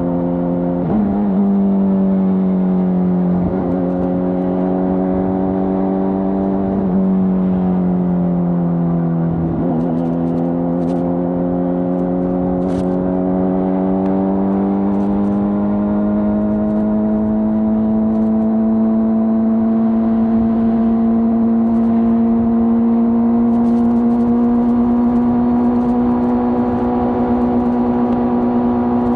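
2025 Honda CBR600RR inline-four with its stock exhaust running under way at steady high revs. The pitch dips briefly three times in the first ten seconds, then holds and slowly climbs.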